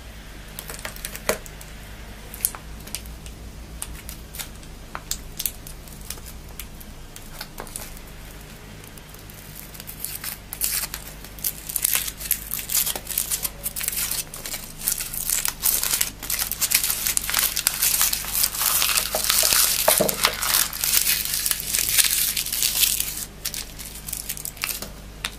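Foil wrapper of a chocolate surprise egg being crinkled and torn open by hand. Scattered crackles at first, then denser, louder crinkling and tearing from about ten seconds in until near the end.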